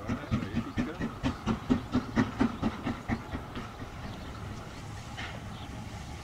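Exhaust beats of the LMS Princess Coronation class steam locomotive 'Duchess of Sutherland' as she works her train in: a regular chuffing about four beats a second that dies away about halfway through.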